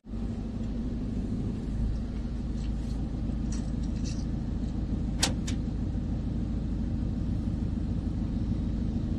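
Steady low rumble of a van's engine heard from inside the cabin, with a few faint ticks and one short, sharp click about five seconds in.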